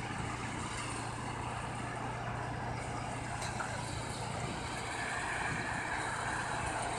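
Diesel engines of heavy road-repair machinery, an asphalt-milling machine and a wheeled loader, running steadily with an even low hum.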